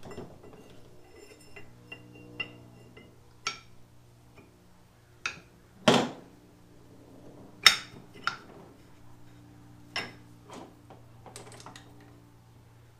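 Steel gear and differential parts clinking and knocking against each other as a ring gear is worked by hand onto a limited-slip differential, with irregular metallic clinks and two louder knocks around the middle. A steady low hum runs underneath.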